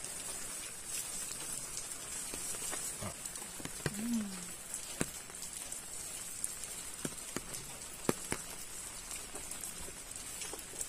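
Faint outdoor ambience: a steady high hiss with scattered light ticks and taps, and a brief low hum of a voice about four seconds in.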